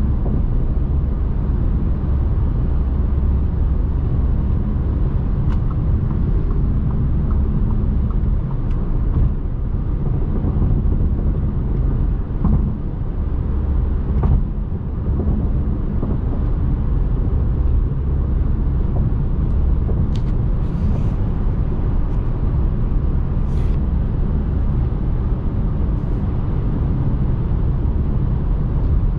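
Steady low road rumble inside the cabin of a 2021 Audi Q3 cruising at highway speed, with a few faint brief ticks.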